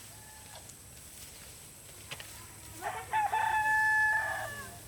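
A rooster crowing once, a long held call starting about three seconds in.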